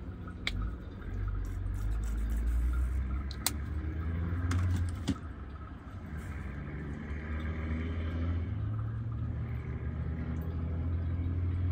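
Low motor-vehicle engine rumble that swells and eases a few times. A few light clicks sound over it, about half a second in and again around three and a half and five seconds.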